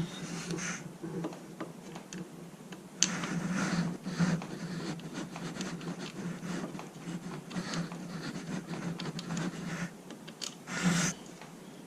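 Hand-work on an outboard motor's lower unit: scattered small clicks, scrapes and rubbing of metal parts being handled and fitted, with a few sharper knocks about 3, 4 and 11 seconds in, over a faint steady low hum.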